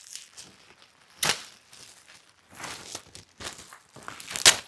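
Packaging being crinkled and rustled as a handbag is unwrapped from its box, in several short bursts: a sharp one about a second in and the loudest near the end.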